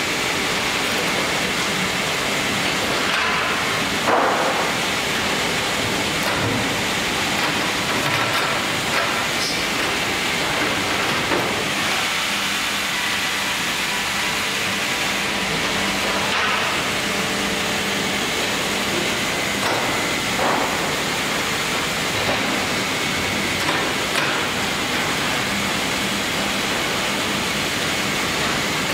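Sawmill machinery running with a steady, loud, even noise. About five brief knocks sound along the way as logs are shifted on the chain log deck and the carriage's loader arms.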